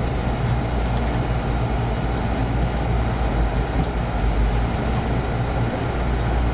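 A steady low-pitched rumbling hum that holds at one level throughout, with no distinct knocks or clicks.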